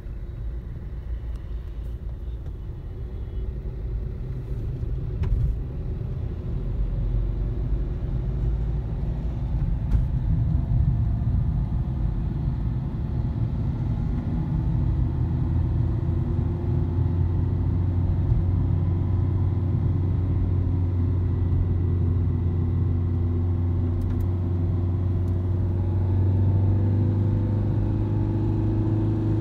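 Engine and road noise heard inside a moving vehicle's cabin: a low rumble that grows louder over the first several seconds as the vehicle picks up speed, settling into a steady engine hum.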